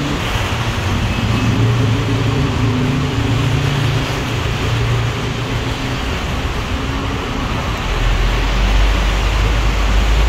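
City bus running at a station platform, a steady low engine hum over traffic noise, with a deep rumble swelling about two seconds before the end as the bus pulls away.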